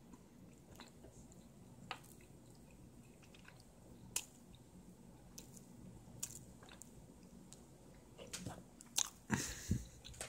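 A cat biting and chewing pieces of turkey meat close by: faint, scattered wet clicks and smacks that get busier and louder near the end.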